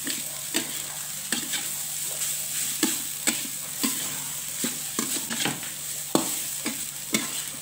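Fried rice sizzling in a metal wok while a spatula stirs and tosses it, scraping and tapping against the pan about once or twice a second over a steady frying hiss.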